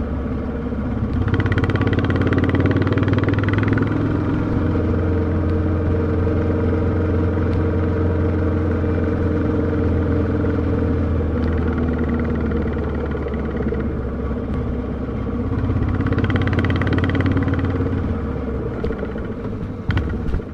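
Royal Enfield Classic 350's single-cylinder engine running steadily as the motorcycle is ridden, heard from the rider's seat. It swells louder twice, about a second in and again near the end.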